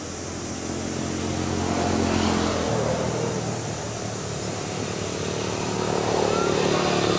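Engine of an unseen motor vehicle running nearby, a steady hum that swells in loudness about two seconds in and again near the end.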